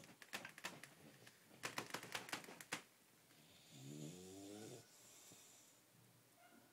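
An English bulldog snoring in its sleep. Two quick runs of sharp clicks come in the first three seconds, then one pitched snore of about a second around four seconds in, followed by a softer breath.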